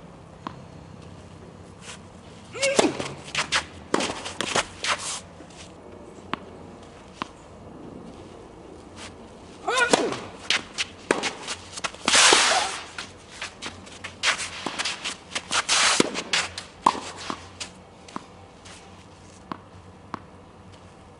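Tennis play: sharp pops of racket strings striking the ball and the ball bouncing on the court, in two busy spells separated by quieter gaps, with scuffs and footsteps of the players.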